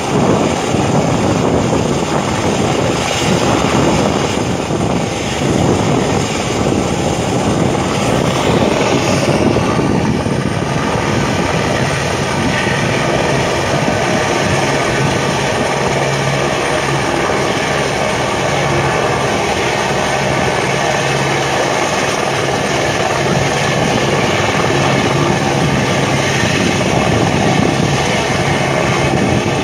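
Military light helicopter hovering low, its rotor and turbine engine running loud and steady.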